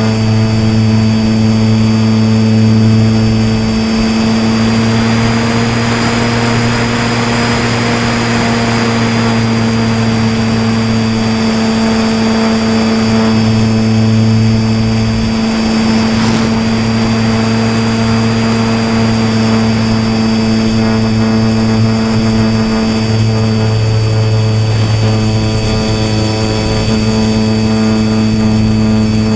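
Motor and propeller of a styrofoam RC plane running at a steady pitch, heard from a camera mounted on the plane, with wind rushing past that swells for a few seconds a little way in.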